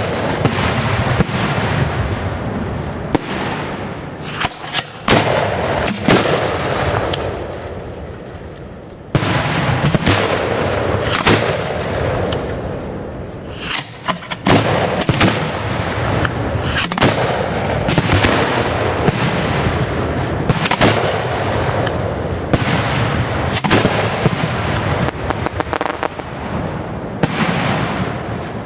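1.3G display fireworks going off in a continuous barrage, shell bursts and reports coming several a second over a steady crackle and rumble. It eases off briefly about eight seconds in, then a sudden loud burst starts it up again.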